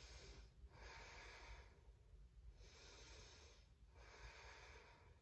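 A woman's slow, faint breathing, each breath in or out a hissy stream lasting about a second with short pauses between, as she holds a twisting yoga lunge.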